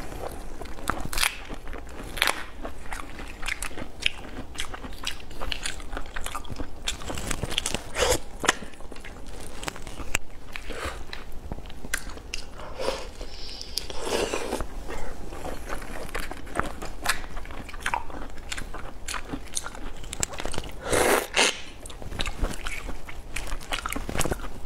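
A person biting into and chewing a large red prawn, its shell cracked and pulled off by hand: many irregular crunches and crackles.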